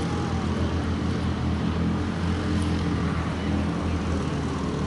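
Steady low mechanical hum from an engine running at constant speed.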